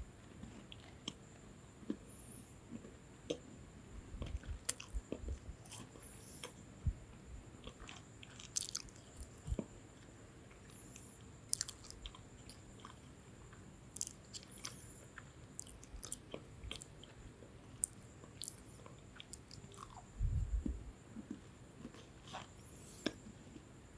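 Close-up chewing of a crisp lemon sandwich biscuit: irregular crunches and crumbly crackles, with a low muffled thump about twenty seconds in.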